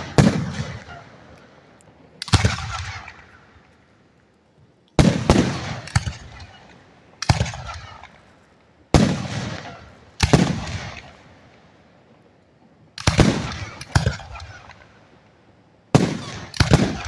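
Aerial firework shells bursting overhead: about ten sharp booms, some in quick pairs, coming every one to three seconds. Each boom trails off in a rolling echo.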